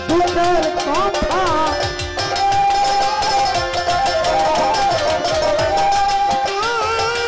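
Baul folk band playing an instrumental interlude: a melody line with sliding ornaments over a steady hand-drum rhythm.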